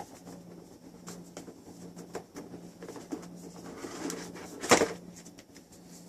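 Cardboard packaging being handled and opened by hand: scattered light rustles and taps, with one louder sharp knock about three quarters of the way through.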